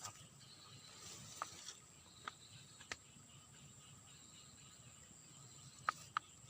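Steady high-pitched drone of insects, with five short sharp clicks scattered through it, the loudest two close together near the end.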